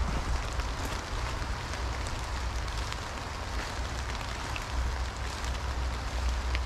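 Footsteps through wet fallen leaves in the rain: a steady patter and rustle with scattered small ticks, over a low rumble.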